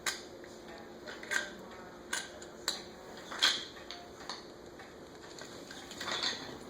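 Light, irregular clicks and clacks of small hard toy pieces being handled, about one every half second to a second.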